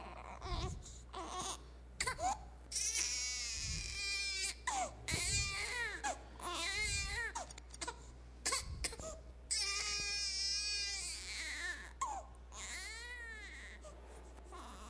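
Newborn baby crying: a string of cries, each rising and falling in pitch, with short gaps between.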